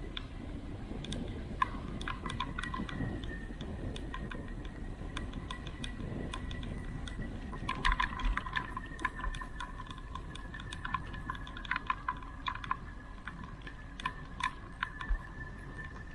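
Irregular rapid clicking and rattling over a low wind rumble, with a faint steady high whine, typical of a bicycle rattling on a descent. The clicks bunch up about halfway through and come in sharper single snaps near the end.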